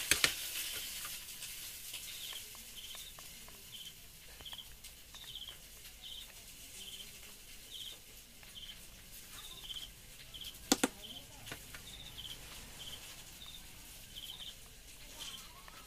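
Short high chirps repeating steadily in twos and threes, with a sharp click about eleven seconds in.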